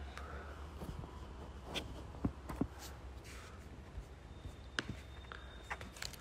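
Quiet room tone with a low steady hum and a few scattered faint clicks and knocks, small handling noises.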